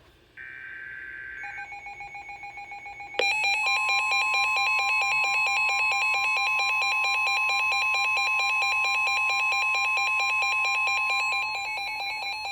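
Emergency Alert System alert tones for a severe thunderstorm warning. A short buzzy burst of digital header tones comes first, then a faint pulsed beep. About three seconds in, a loud, rapidly pulsing alarm beep starts, joined by a steady high tone, and it runs until near the end.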